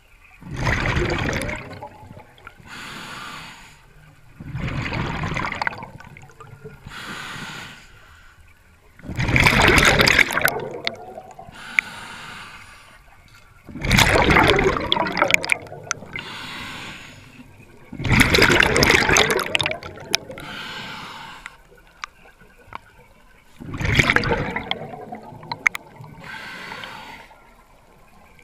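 Scuba diver breathing through a regulator underwater: a breathy hiss on each inhale alternates with a louder rush of exhaled bubbles, about one full breath every four to five seconds.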